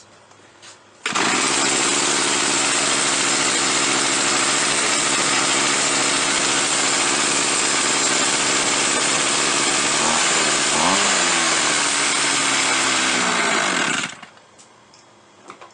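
Shindaiwa T282 string trimmer's small two-stroke engine running at idle, starting abruptly about a second in. About ten seconds in, the revs waver and rise briefly as it is given throttle, then sag, and the engine cuts out near the end. Dying when accelerated is the fault of its non-original carburetor.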